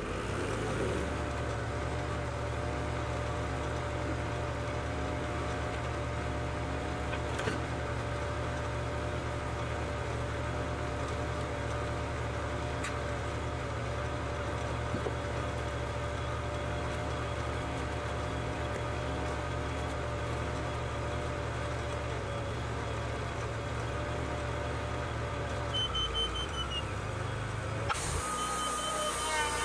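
Wood-Mizer hydraulic portable bandsaw mill's engine running at a steady speed, a constant drone. Near the end the drone shifts and a few short, high beeps sound.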